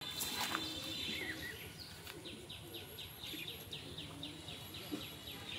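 A brief spattering splash as a wide throw lands across the pond surface. Then a bird gives a rapid run of short falling chirps, about four a second.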